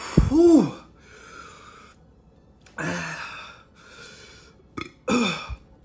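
A man's pained, wordless vocal sounds and hard breaths through pursed lips as his mouth burns from a super-hot chili chip: a loud groan that rises and falls just after the start, a breathy blow of air in the middle, and a shorter falling groan near the end.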